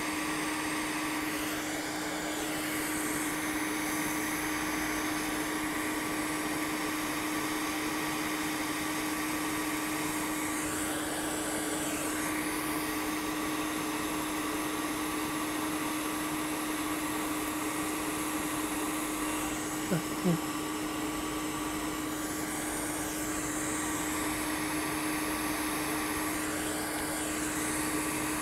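Hot air rework station blowing steadily with a constant hum, used to desolder MOSFETs and other small parts from a laptop motherboard. Two short falling chirps stand out about twenty seconds in.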